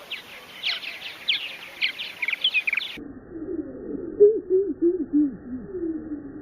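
Purple martins calling with quick, high chirps. About three seconds in, the audio switches to a slowed-down version in which the calls become low, drawn-out falling notes.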